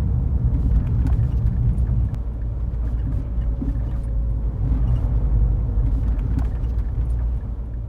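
Car on the move: a steady, loud low rumble of road and engine noise.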